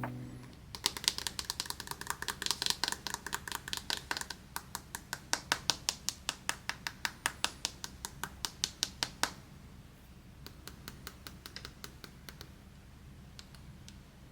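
A quick, even run of light clicks or taps, about four or five a second, like typing, stopping about nine seconds in; after that come a few scattered, fainter ticks.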